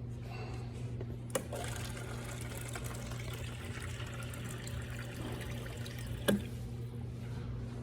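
Running water rushing over a steady low hum, starting with a sharp knock about a second and a half in and stopping shortly after a second knock near the end.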